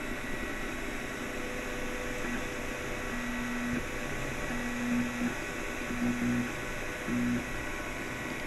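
Anet A8 3D printer running: a steady hum from its cooling fans, with the stepper motors giving a short whining tone several times as the print head moves along the outline of the first layer.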